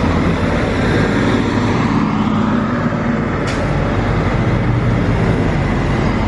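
Steady motor-vehicle and road-traffic noise, a continuous rumble with a low hum, and one short tick about three and a half seconds in.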